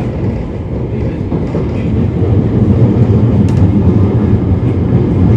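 MTR East Rail Line SP1900 electric train running, heard from inside the carriage as a steady low rumble that grows louder about two seconds in.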